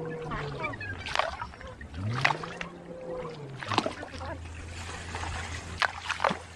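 Water splashing in a shallow river, a handful of sharp splashes a second or so apart over a steady wash of moving water. Under it a motor hums, its pitch sliding down, rising and falling once, then holding steady from about halfway.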